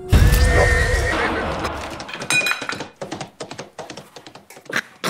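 A sudden loud crash with a horse whinnying over it, the rumble dying away after about two seconds, then a string of scattered knocks.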